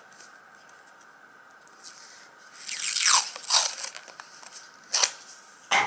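Small electronic parts handled against a breadboard: a short spell of scraping, crunching noise about halfway through, then two sharp clicks near the end.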